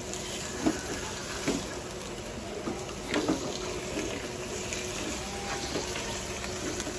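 Chicken and pork pieces cooking in their own released juices in a non-stick wok, a steady bubbling hiss, with a spatula scraping and knocking against the pan several times.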